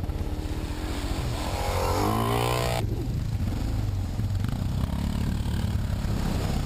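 Suzuki DR650 single-cylinder trail bike engine running under the rider as it rides a muddy trail, heard from on board. About two seconds in the engine revs up in a rising whine that breaks off abruptly near three seconds, after which it runs on steadily.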